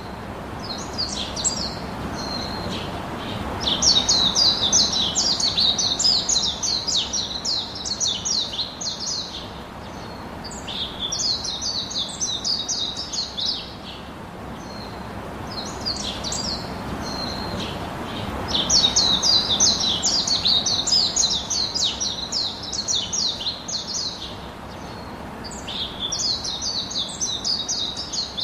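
Birds chirping in bursts of rapid, high trilled notes lasting a few seconds each, with short gaps between, over a steady background hiss. The same sequence of bursts comes round again about halfway through.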